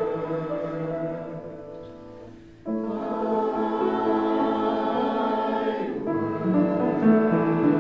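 Choir singing sustained chords of a hymn; one phrase fades out, and after a short gap a new chord comes in suddenly about a third of the way through and is held.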